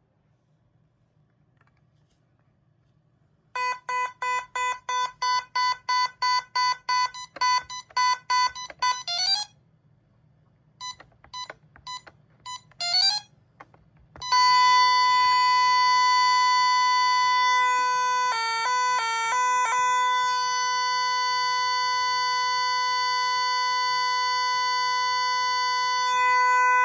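Gardtec 591 intruder alarm panel sounding through its speaker: a run of rapid beeps, about two to three a second, then a few scattered short beeps, then an unbroken, buzzy alarm tone about halfway through that keeps going, with a brief stutter partway along.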